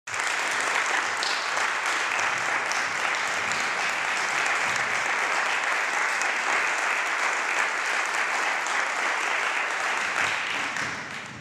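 Audience applauding, a steady clatter of clapping that dies away near the end.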